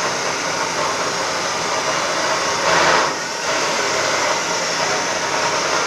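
Electric angle grinder grinding steel, a steady whirring hiss that swells briefly about three seconds in.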